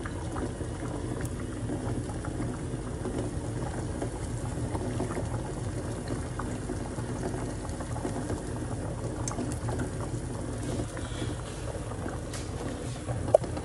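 Water heating in a stainless steel pot of brown lentils and chopped vegetables, bubbling and crackling steadily as it starts toward a boil, over a steady low hum. One sharp tick near the end.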